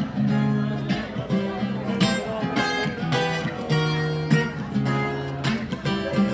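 A street busker's acoustic guitar strumming chords in a steady rhythm.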